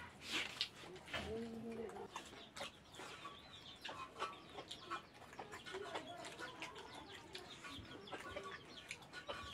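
Eating by hand: fingers scraping rice across a metal plate and soft chewing, making many small clicks, with hens clucking in the background.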